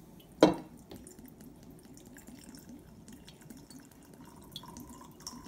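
Vodka glugging out of the bottle's neck into a glass mason-jar mug of orange juice: a steady run of evenly repeating gurgles. A single sharp knock about half a second in.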